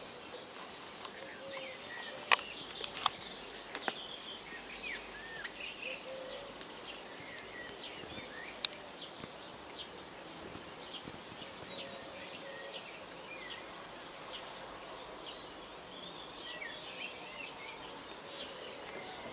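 Small birds chirping and calling over a steady outdoor hiss, with a few sharp clicks, the loudest about two and eight and a half seconds in.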